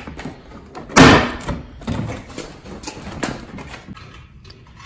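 Plastic front bumper fascia trim of a GMC Sierra being pulled loose by hand: one loud pop as it comes free about a second in, then a few lighter plastic knocks.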